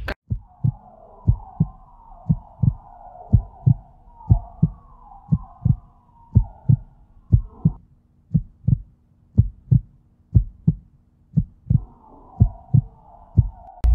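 Heartbeat sound effect: low thumps in pairs, about one beat a second, steady throughout. Over it runs a wavering high tone that fades out for a few seconds in the middle and comes back near the end.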